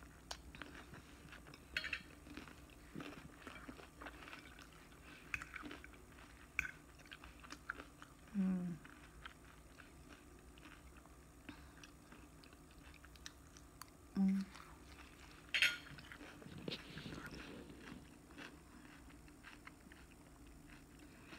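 A person chewing a mouthful of salad greens with the mouth closed, with soft crunches and small wet mouth clicks. Two short low hums come through the mouth, and one sharper click.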